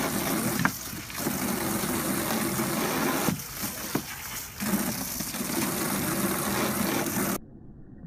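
Garden hose jet spraying into the water of a plastic kiddie pool, with a dog splashing as it bites at the stream. The rushing water briefly drops away twice and cuts off suddenly near the end.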